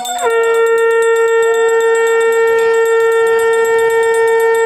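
Conch shell (shankha) blown as a ritual call in one long, steady held note that sounds about a quarter second in, right after the previous blast breaks off, with a fainter wavering tone alongside.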